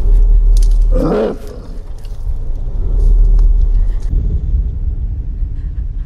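Horror-film sound design: a deep, steady low rumbling drone, with a short cry whose pitch sweeps up and down about a second in.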